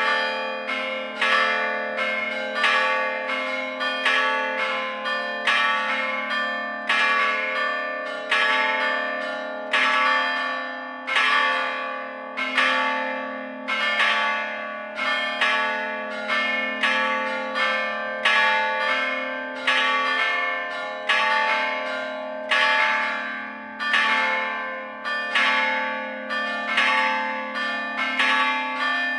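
Full peal of four church bells cast in Gescher, hung still in an open campanile and struck by hammers rather than swung. The strikes come one to two a second in an uneven pattern and ring on into each other over a steady low hum.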